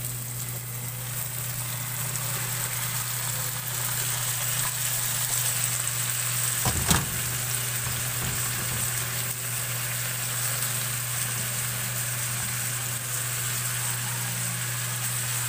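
Sautéed garlic, onion and tomato sizzling steadily in a pan as sliced bottle gourd (upo) is added, with a single sharp knock about seven seconds in.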